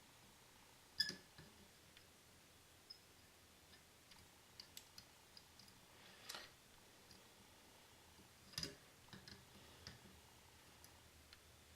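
Near silence with faint, scattered clicks and small knocks, the two loudest about a second in and a little past eight and a half seconds, with lighter ticks between.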